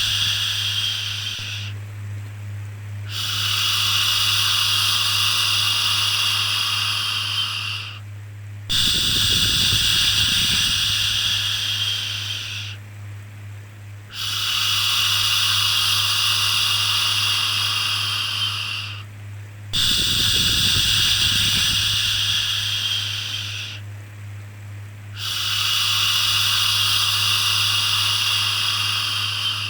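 Repeated long 'shhh' shushing sounds for settling a baby, each lasting about four seconds with a short pause between, five or six in all, over a steady low hum.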